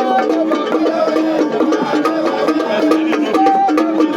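Music with a quick, repeating plucked-string melody over light percussion.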